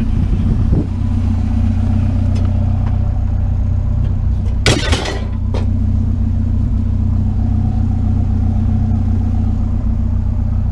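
Truck engine running steadily with a low rumble, and a sharp clank about five seconds in.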